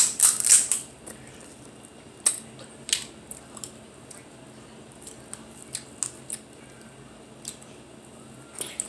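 Crab leg shells cracking and snapping as they are broken apart and picked open by hand, with close-up eating sounds. A quick run of crackles comes in the first second, then single sharp cracks every second or so.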